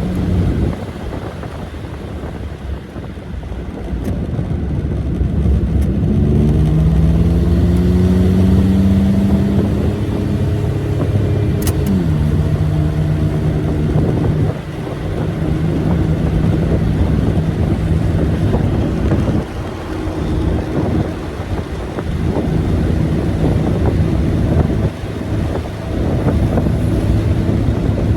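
1986 Buick Grand National's turbocharged V6 heard from the moving car, still on its factory-size rear exhaust: the engine note rises as the car accelerates, drops suddenly at an upshift about twelve seconds in, then holds steady while cruising. Wind noise runs underneath.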